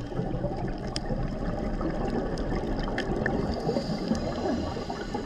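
Underwater ambience on a reef heard through a camera housing: a steady low rush of water, with a few faint clicks scattered through it.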